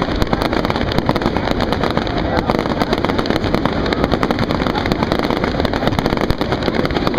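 Fireworks display going off: a dense, continuous rattle of crackles and bangs from spark fountains and aerial bursts, with no pause.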